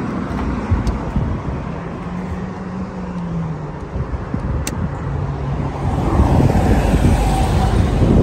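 Road traffic passing close by: a steady low rumble with the hum of a vehicle engine, swelling louder over the last couple of seconds. Two light clicks, about a second in and near the middle.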